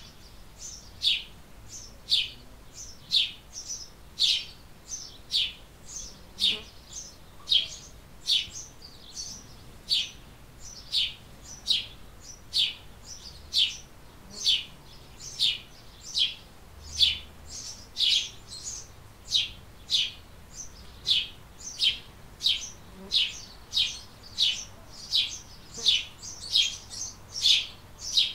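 House sparrow chirping steadily, a monotonous series of short cheeps at about two a second.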